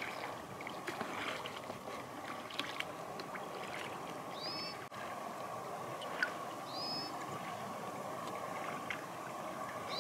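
Steady running noise of a boat on the water, with a few short, high bird calls, each rising then falling, a couple of seconds apart. One sharp tick stands out just past the middle.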